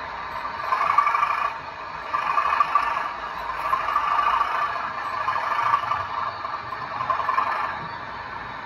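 Model diesel locomotive's DCC sound decoder playing a diesel engine sound through a small onboard speaker as the OO gauge train creeps along, swelling and easing every second or so, with light rattling from the wheels on the track.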